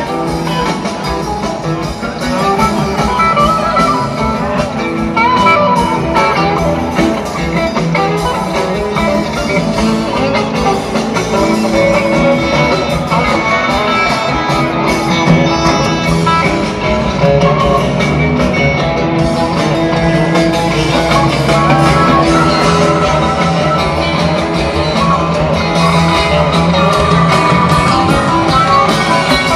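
Live rock band playing an instrumental jam, with an electric guitar taking the lead, heard from the crowd.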